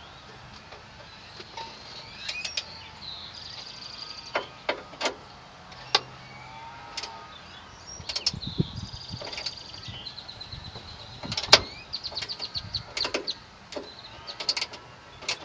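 Hand ratchet with a Phillips bit driving a speaker mounting screw: runs of rapid ratchet clicks, with scattered sharp knocks and short high squeaks between them.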